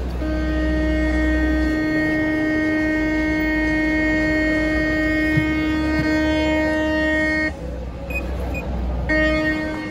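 A long, steady, single-pitched tone sounds for about seven seconds, cuts off, and starts again about a second and a half later. A low rumble runs under its first couple of seconds.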